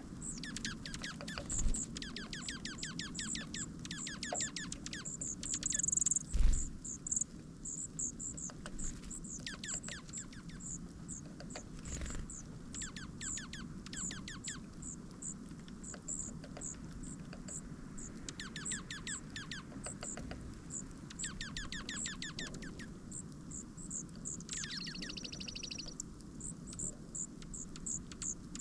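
Small birds at a backyard feeder: short high-pitched calls repeated about twice a second throughout, with several bursts of rapid ticking, a few thumps (the loudest about six seconds in) and a short buzzy call near the end, over a steady low hum.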